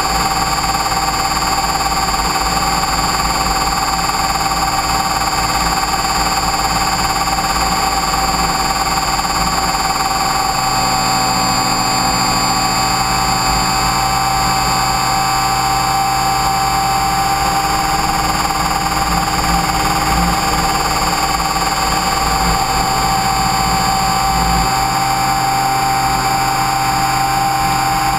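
Align T-Rex 550E electric RC helicopter heard from its onboard camera: the brushless motor and gear drive give a steady whine of several held tones over a rushing wind noise. A lower steady hum joins about a third of the way in.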